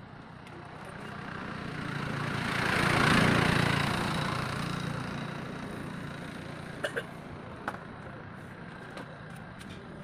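A motor vehicle passing by: its noise swells up over about three seconds and fades away again. Two short sharp clicks follow, about seven and eight seconds in.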